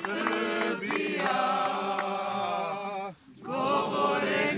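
A crowd of people singing together, holding long notes, breaking off briefly about three seconds in and then taking up the song again.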